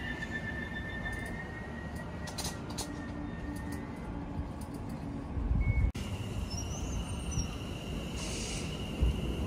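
Greater Anglia electric multiple unit moving through the platform, a low rumble with a steady high electric whine from its traction equipment that rises slightly at the start. A louder low thump comes about six seconds in, and a short hiss near the end.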